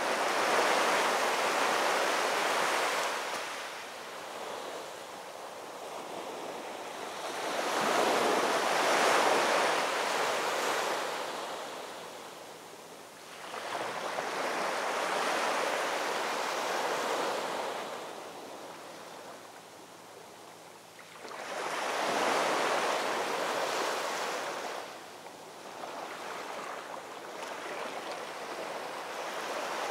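Waves washing onto a shore: a rush of surf that swells and fades about every six to eight seconds, five surges in all.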